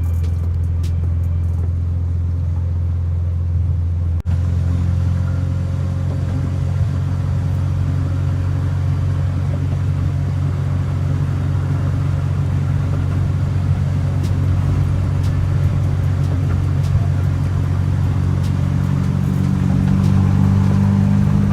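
Honda Del Sol's four-cylinder engine drones steadily while driving, with a short break about four seconds in. Its pitch rises slightly near the end as it speeds up.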